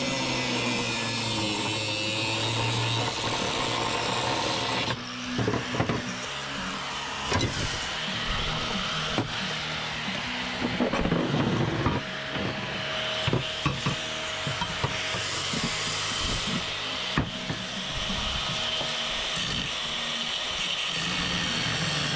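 Irregular knocks, clinks and scraping from small scrap being handled and sorted by hand, with a steady tone for several seconds in the middle, over background music at the start and near the end.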